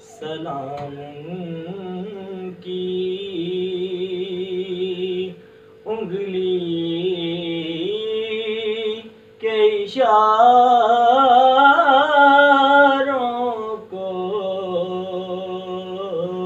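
A man singing a naat, an Urdu devotional song, solo in long held phrases with ornamented turns and short breaths between them. The loudest, highest phrase comes about two-thirds of the way through.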